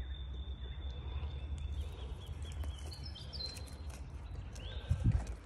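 Footsteps crunching on dry gum leaves and twigs, with birds calling in thin high whistles. A low rumble of wind on the phone's microphone runs underneath, with a louder buffet about five seconds in.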